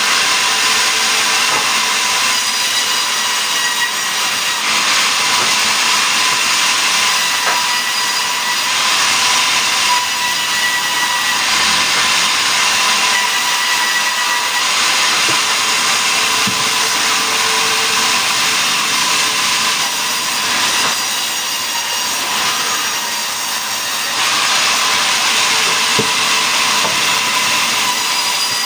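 Sawmill saw cutting mahogany into boards: a loud, steady machine noise with a thin ringing tone, swelling and easing every few seconds.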